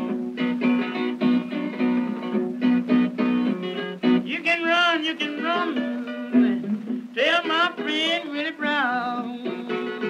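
Background song: plucked strings keep a steady rhythm, and a melody with heavy vibrato comes in about four seconds in and again about seven seconds in.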